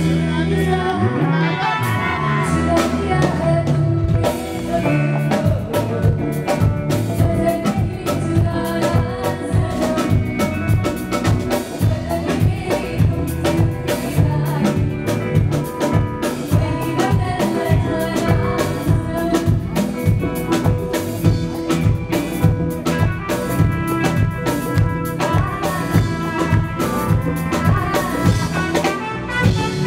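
Live pop music performance: women singing into microphones over a drum kit and backing music, with a steady beat.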